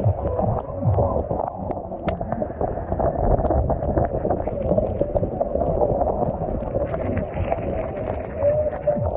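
Muffled, steady rumble of a motorbike ride through heavy rain, with rain and wind on the microphone over the road and traffic noise.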